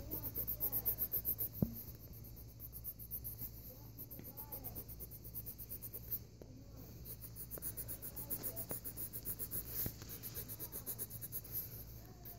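Coloured pencil shading on sketchbook paper: rhythmic scratching in quick back-and-forth strokes, several a second. A high, fast-pulsing trill comes and goes in the background.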